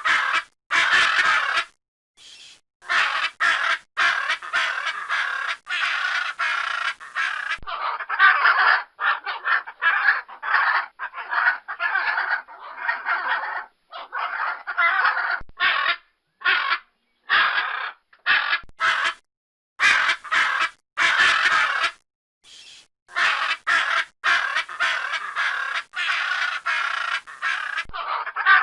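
Blue-and-yellow macaw calling over and over, a rapid run of loud squawks with short gaps between them.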